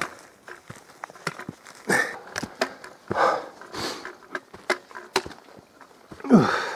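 A hiker breathing hard, in heavy gasps, while climbing a steep woodland path, with footsteps and knocks from the handheld camera between breaths. Near the end comes a short falling grunt.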